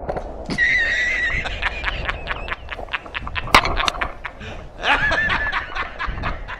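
A man's loud, hysterical laughter in rapid bursts, from a dubbed-in film clip.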